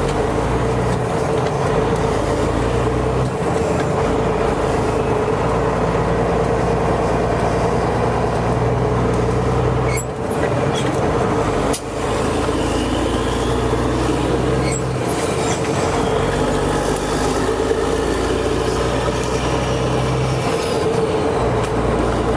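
Straight-piped Caterpillar C15 550 hp diesel truck engine pulling under load with no muffler, heard from inside the cab with the windows open. The exhaust note is loud and steady, dropping briefly twice, about ten and twelve seconds in.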